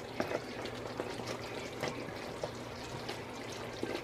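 Thick red sugar syrup boiling in a metal pot, a steady bubbling and crackling; the syrup has cooked down almost to the thread stage. A few light clicks come as metal tongs turn a ring of dough in it.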